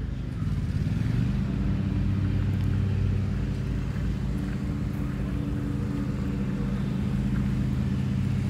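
An engine running, rising a little in pitch and getting louder about a second in, then holding a steady drone.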